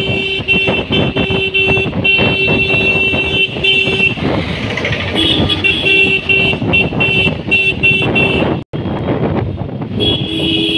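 Motorcycle riding in town traffic, engine and road noise under a vehicle horn honking in long, repeated beeps, with a break of about a second near the middle.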